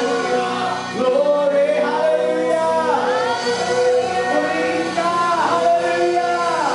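A live church worship band playing, with a male lead and backing singers holding long notes through microphones, in sung phrases of about a second each.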